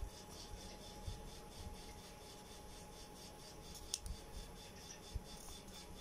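Scissors cutting around a small paper cut-out, faint snipping with a sharper snip about four seconds in.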